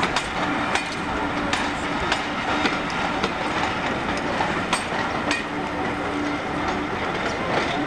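Passenger coaches rolling slowly past, their wheels clicking irregularly over rail joints and points, with a thin steady whine that comes and goes.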